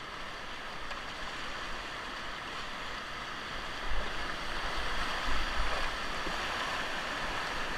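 Rushing river water around a raft on the Ocoee River: a steady whitewater rush that grows a little louder about halfway through, with a few dull low bumps.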